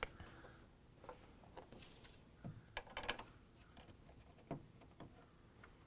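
Faint, scattered clicks and knocks of a hand socket ratchet and a taillight assembly being handled as the light's bolts are fitted, with a brief rustle about two seconds in.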